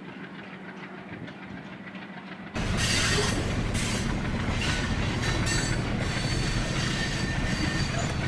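Diesel locomotive running at a steady low hum, then about two and a half seconds in a sudden step up to the louder sound of the train rolling over the rails, with repeated wheel clatter.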